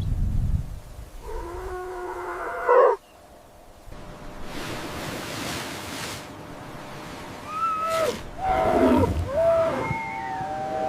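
Animal calls: a pitched, wavering cry about a second in lasting over a second, then after a break a run of shorter cries that drop in pitch at their ends and a longer held call near the end.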